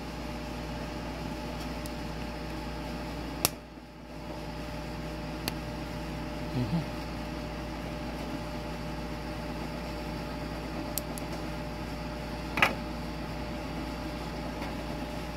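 Small side cutters snipping a plastic pigeon leg band: a few short, sharp clicks, the loudest about three and a half seconds in and again about three seconds before the end, over a steady mechanical hum.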